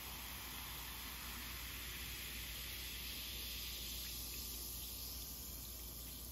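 Sparkling water pouring from a glass bottle into a glass, with steady fizzing and splashing; the pour and fizz thin out about four seconds in.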